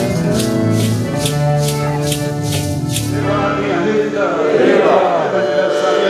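Accordion and maracas accompanying a Santo Daime hymn, the maracas shaken in an even beat about twice a second. The music ends about three seconds in, and a crowd of voices sings and calls out after it.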